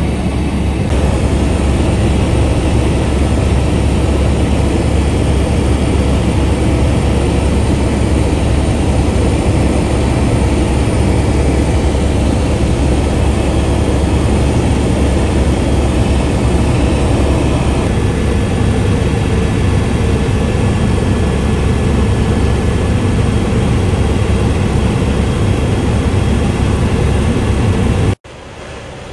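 Steady, loud, deep engine and airflow noise heard from inside an aircraft cabin in flight. It cuts off abruptly near the end.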